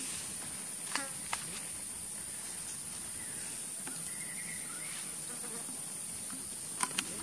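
Steady, high-pitched drone of insects, with a few short sharp clicks: two about a second in and two close together near the end.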